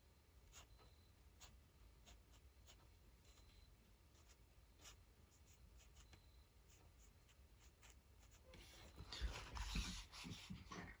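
Faint scratching and light ticks of a Micron fine-liner pen drawing on paper, with louder rubbing and handling sounds in the last two seconds or so.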